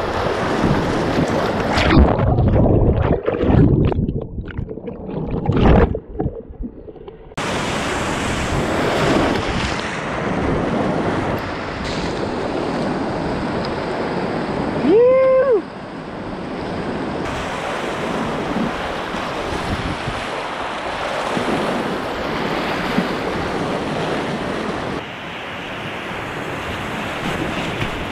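Whitewater rushing and splashing around a kayak surfing a river wave, picked up close on a boat-mounted action camera with some wind on the microphone. Between about 2 and 7 s the sound goes dull and muffled with low thumps, and about halfway through there is one short whooping shout.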